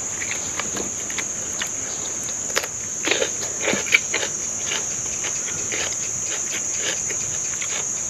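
A steady, high-pitched drone of insects, with a few short chewing and mouth sounds from a person eating grilled beef, mostly about three to four seconds in.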